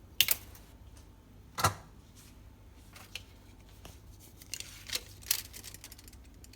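Scattered sharp clicks and taps from hands handling things at a cabinet. Two louder knocks come in the first two seconds, then a run of lighter ticks later on.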